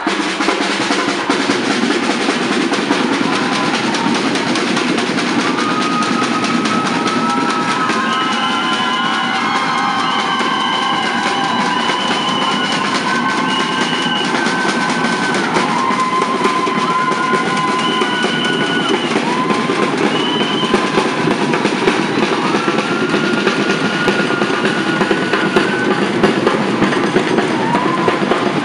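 Music with drums playing a steady, dense rhythm, and a melody of long held high notes over it.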